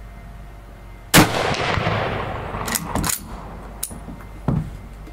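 A single 7.62x54R Mosin Nagant rifle shot about a second in, echoing away over about two seconds. It is followed by a few sharp clicks and a thump.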